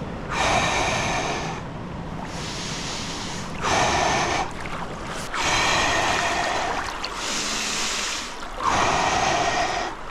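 A man breathing deeply and forcefully through his mouth, about six long breaths in and out, while he lies in cold river water: the hard breathing of a cold plunge. River water sloshes around him underneath.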